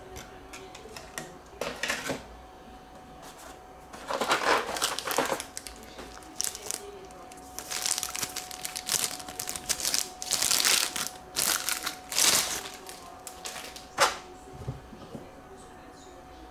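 Clear plastic bag crinkling in irregular bursts as a model airplane is worked out of its wrapping, with a single sharp click near the end.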